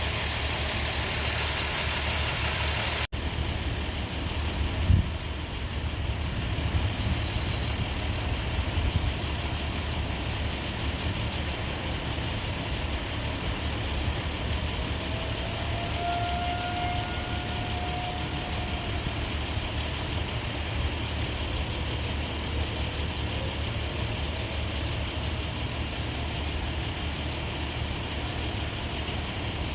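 Truck engines idling and running in nearby street traffic, a steady low rumble that drowns out the distant siren test. The sound cuts out for an instant about three seconds in, and a sharp thump comes about five seconds in.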